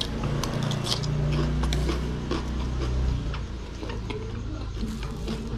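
Close-up chewing of crunchy raw vegetables, many short wet crunches and mouth clicks, with a low hum under the first three seconds.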